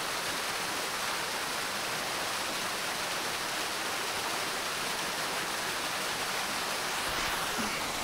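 A small forest waterfall, falling from two points, splashing steadily as an even rush of water.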